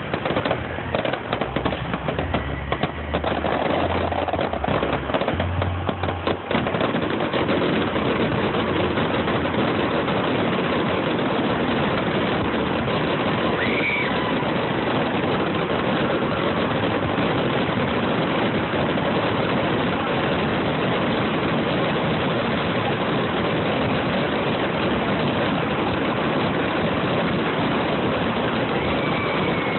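Fireworks display firing a barrage of shells: separate sharp bangs come in quick succession for the first few seconds, then about six seconds in the explosions run together into one continuous loud din.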